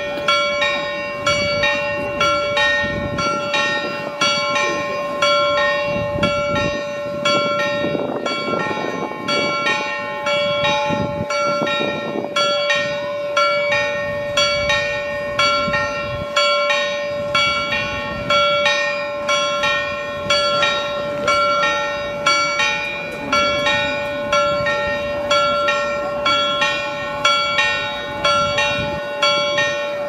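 The Frauenkirche's church bells pealing: a continuous, even stream of strokes, several bells ringing over one another.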